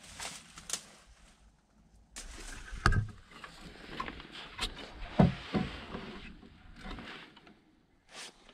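Footsteps and wooden knocks with rustling of dry grass and straw, as someone walks into a log barn. A few sharp thumps stand out, the loudest about three seconds and five seconds in.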